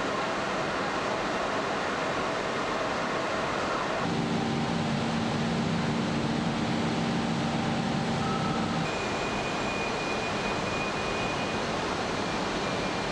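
Carbon-fibre production machinery running: a steady industrial noise with a constant hum. A low hum comes in about four seconds in and gives way to a thin high whine about nine seconds in.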